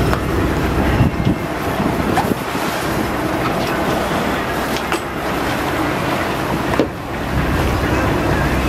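Boat engine running steadily under way, with wind on the microphone and water rushing past the hull; a few brief knocks.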